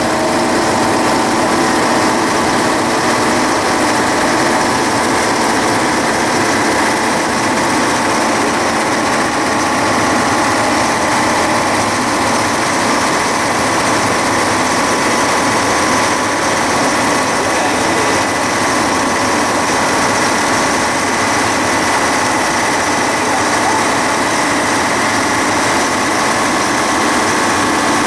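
Train engine and running gear heard inside the driver's cab while under way: a steady, loud drone with several held tones and no change in pace.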